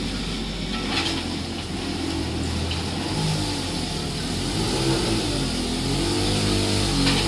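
Mini excavator's diesel engine running under working load, its pitch rising and falling repeatedly as the hydraulics move the arm and bucket. A single sharp knock comes about a second in.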